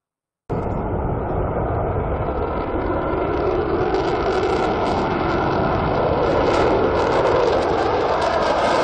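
Fighter jet's engine on a takeoff run with afterburner lit, a dense steady rush that cuts in suddenly about half a second in and slowly grows louder and brighter as the jet lifts off.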